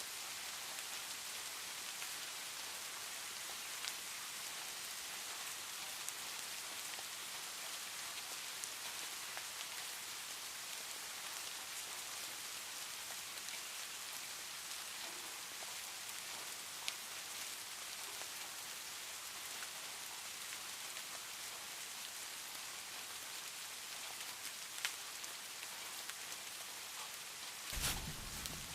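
Steady rain falling on a surface, an even hiss with scattered sharp drop ticks. Near the end a brief, louder sharp crack breaks in.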